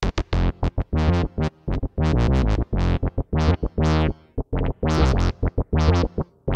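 Synth bass from HALion Sonic SE's Rude Synth Bass preset playing a fast repeating line of short notes. A resonant filter with a lengthened attack time makes many of the notes open up and grow brighter as they sound.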